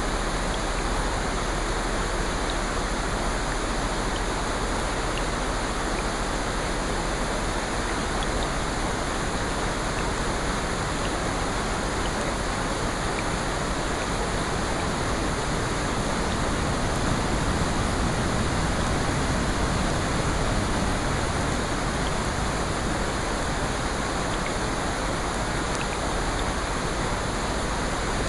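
Steady rushing water ambience of rain mixed with ocean surf, swelling a little about two-thirds of the way through, with a few faint scattered ticks.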